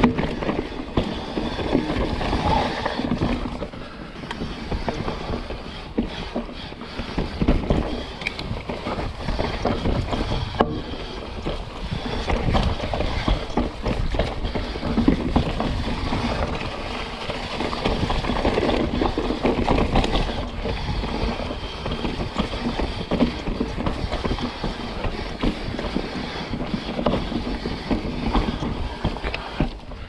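Mountain bike riding down a dirt forest trail: tyres rolling over dirt, roots and leaves, with a steady stream of rattles and knocks from the bike over the bumps.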